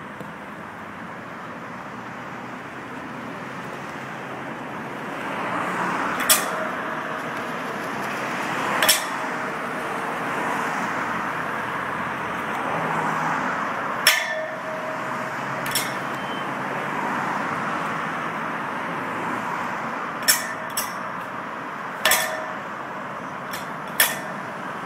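A whip being cracked, about nine sharp cracks at irregular intervals, some coming in quick pairs in the second half, over the steady noise of passing road traffic.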